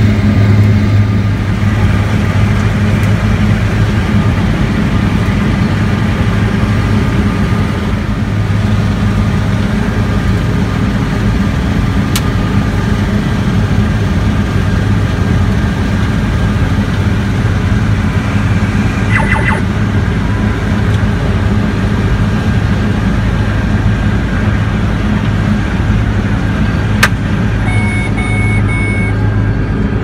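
New Holland combine harvester running steadily while harvesting soybeans, heard from inside the cab: a loud, steady low drone of engine and threshing machinery. A brief beeping comes about two-thirds through, and three short beeps near the end.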